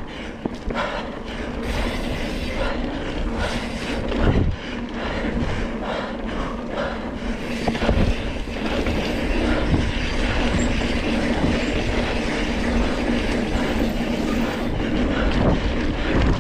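Single-speed mountain bike, a Surly Krampus, rattling over rough trail: tyre rumble with a constant run of clicks and knocks from the bike as it goes over the ground.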